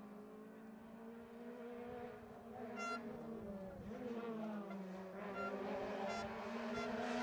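Rally car engine approaching along the stage, its note rising and falling as it revs and shifts, growing louder toward the end. A few short high-pitched tones sound over it.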